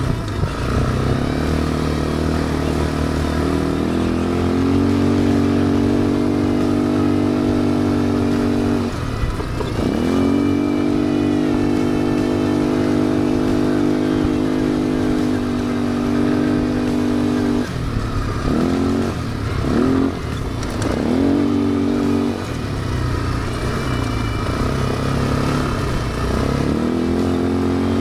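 ATV engine running at a steady held throttle, its pitch dropping and climbing again as the throttle is eased off and reopened: once about nine seconds in, several times in quick succession between about eighteen and twenty-two seconds, and again near the end.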